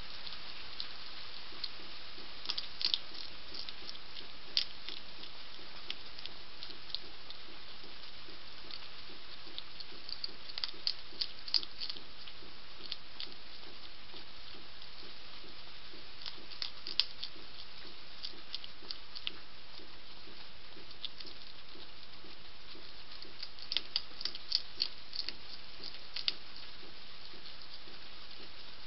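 European hedgehog chewing dry kibble, with sharp crunches coming in several short clusters over a steady background hiss.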